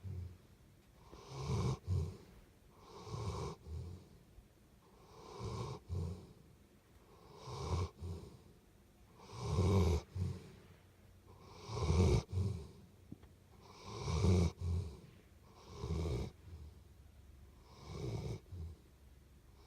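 Rhythmic snoring, about one snoring breath every two seconds. Some breaths end in a short second puff, and the loudest come about halfway through.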